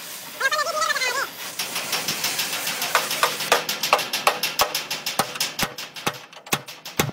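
Gas torch hissing as it heats a rivet in a steel truck frame rail. From about two seconds in, sharp metal-on-metal hammer blows ring out, coming faster near the end, as the red-hot rivet is hammered down through a rivet snap to form its head.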